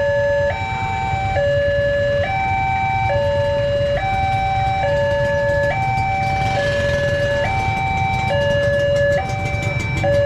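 Electronic railway level-crossing alarm sounding a two-tone hi-lo warning, switching between a lower and a higher tone about once a second, the signal that a train is approaching and the crossing is closed.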